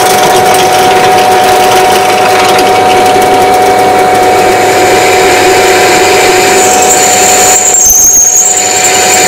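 Benchtop drill press running at slow speed, its 7 mm HSS bit with a chewed-up tip drilling dry into D2 steel, the motor giving a steady hum. About seven seconds in, a high-pitched squeal joins it: the dull bit is rubbing rather than cutting cleanly and not throwing proper spiral chips.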